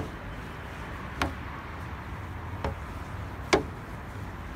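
A child's footsteps going down perforated metal playground stairs: a sharp knock at each step, about one a second, five in all, the fourth the loudest.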